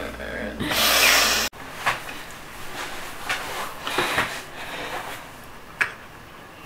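A rush of noise lasting about a second that cuts off suddenly, then a few light knocks and rustles of a camera being handled on a desk.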